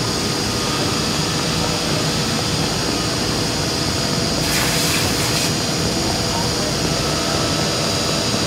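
Woodmaster WM-1325RBS CNC router's spindle running with a steady high whine as it mills through a wood panel, with the dust extraction running. A short burst of hiss lasting about a second comes about four and a half seconds in.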